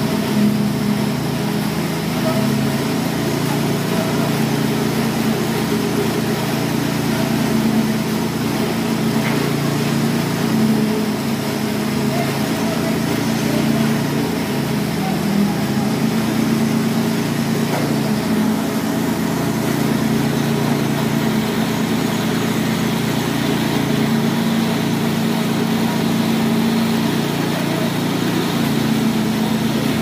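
An engine running steadily throughout, the machinery working a wet concrete pour.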